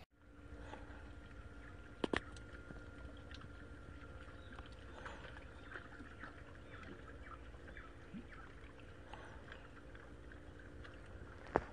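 Faint seashore ambience: a low steady rumble with light water sounds and scattered small ticks. There is a sharp double click about two seconds in and another click near the end.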